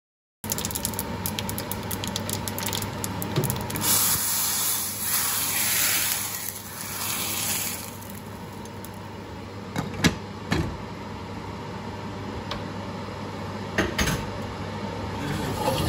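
Hot oil tempering with mustard seeds crackling in a small tadka pan, then a loud sizzle lasting a few seconds as the hot tempering is poured into the pot of rasam. This is followed by a few metal clinks of the ladle and a lid set down on the pot, over a steady low hum.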